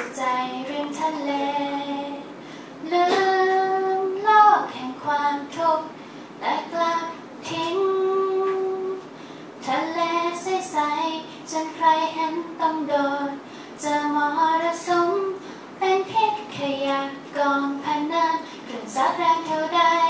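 A woman singing a song into a handheld microphone, holding long notes in phrases with short breaks between them.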